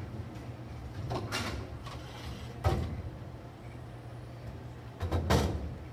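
Bowling alley machinery hum with three sudden knocks that fade quickly, about a second in, near the middle, and loudest near the end: bowling balls clunking in the ball return.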